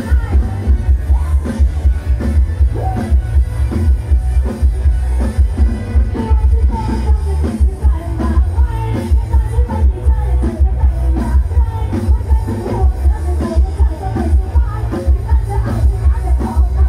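Live band on a Thai rot hae truck stage playing loud amplified dance music through its sound system, with a heavy pulsing bass beat and women singing into microphones.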